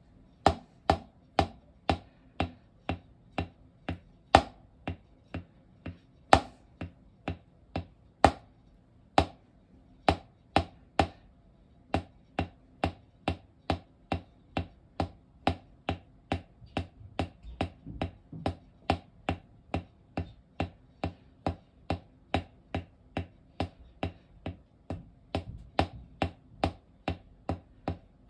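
Wooden drumsticks tapping a rubber practice pad: a steady run of single strokes, about two a second, with some strokes played louder as accents.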